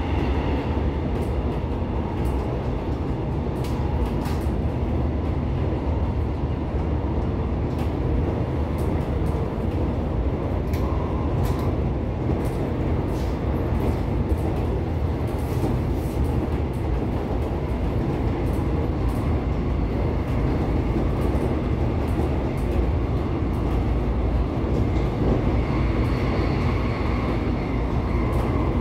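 Electric commuter train running along the track, heard from inside the carriage: a steady low rumble of wheels and running gear with scattered sharp clicks. A faint high whine comes in near the end.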